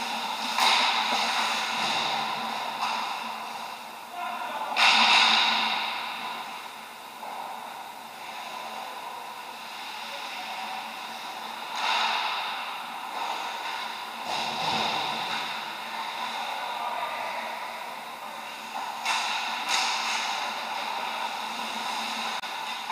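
Ice hockey skate blades scraping and carving on the ice in several hissing scrapes a few seconds apart, the loudest about five seconds in, over a steady background hum.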